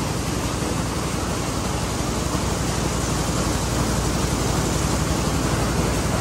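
Jute mill machinery running: a steady, dense factory-floor din with a low hum underneath.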